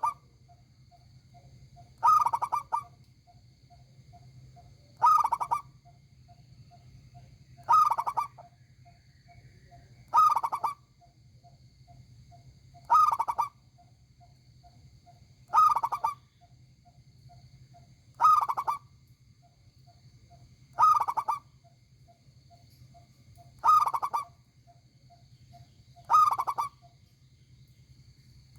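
Zebra dove (perkutut) singing its cooing phrase over and over, a loud call of under a second repeating about every two and a half to three seconds, with faint short notes between the phrases.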